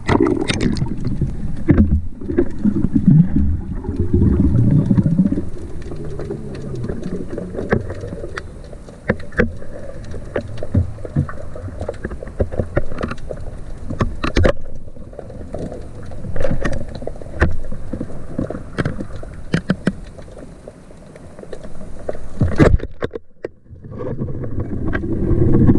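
Water splashing and sloshing close to the microphone, with many scattered sharp knocks and clicks; it breaks off briefly near the end.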